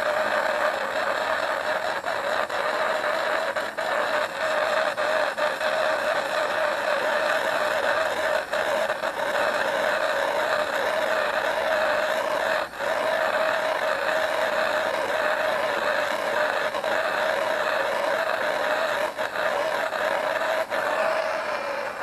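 Hose-fed propane torch burning with a steady, loud hiss as its flame is run along a bamboo stalk to heat-treat it and melt off the surface wax.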